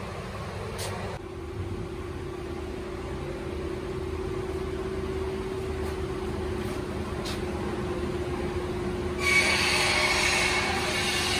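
A machine running with a steady hum and one held tone; about nine seconds in, a louder hissing noise starts suddenly on top of it.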